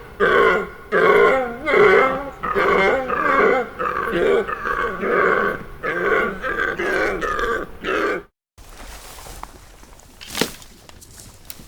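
An animal giving a rapid series of short, pitched calls, about two a second, which stop abruptly about eight seconds in. Faint background noise follows, with a single sharp click.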